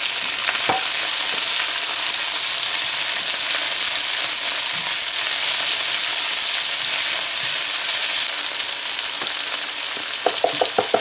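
Sliced bell peppers, onions and long beans sizzling steadily in hot oil in a frying pan, stirred with a silicone spatula.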